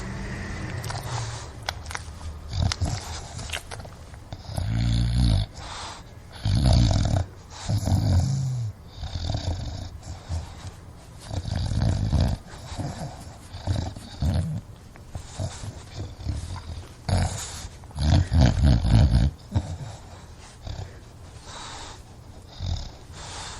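An English bulldog breathing noisily, snorting and grunting in irregular bursts. The loudest, longest grunt comes about three quarters of the way through.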